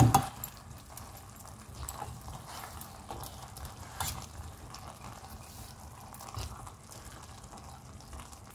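A steel slotted spoon clatters against a steel pot right at the start, then soft scattered clicks and faint rustling as parboiled basmati rice is spooned in and spread into a layer.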